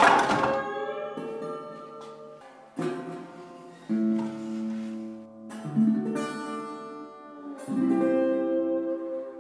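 Background music played on a plucked acoustic guitar: slow chords, each struck and left to ring, a new one every second or two.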